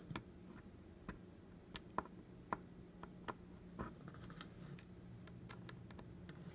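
Faint, irregular small clicks and taps of a precision screwdriver on the tiny screws inside an iPhone 8 Plus, a dozen or so scattered ticks.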